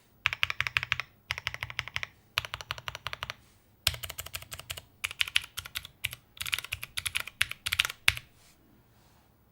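Typing on a plateless HEX4B custom mechanical keyboard: rapid keystroke clacks in bursts of about a second with short pauses, stopping a little past eight seconds in.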